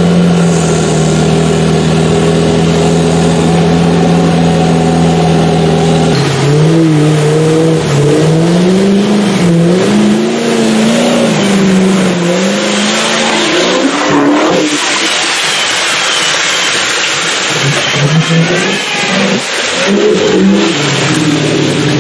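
Land Rover Defender 90 off-road engine running at a steady pitch. About six seconds in it changes to repeated revving up and down, as the truck's mud tyres spin and churn through deep mud.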